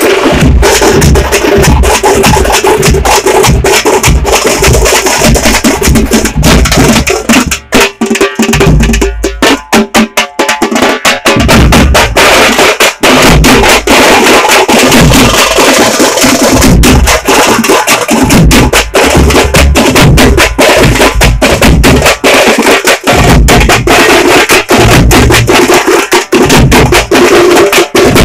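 Tamate frame drums beaten loud and fast with sticks in a dense, driving rhythm. About a third of the way in the beating thins out for a few seconds, then comes back at full strength.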